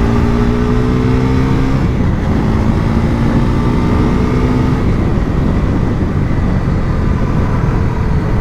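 Bajaj Pulsar NS400Z's single-cylinder engine at a standstill, revved gently twice: each time the exhaust pitch climbs slowly for about two seconds and then drops back, after which it settles to a steady idle.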